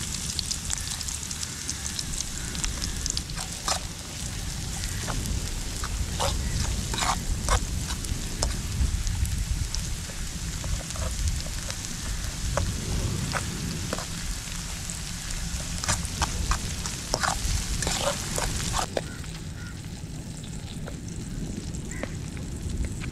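Canned salmon frying in a pan: a steady sizzle with scattered crackles over a low rumble. The sizzle drops away abruptly near the end.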